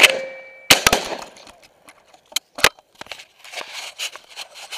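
Close shotgun blasts: one at the very start and another just under a second in, each dying away briefly. About two and a half seconds in come two sharper, quieter cracks, then rustling and handling noise.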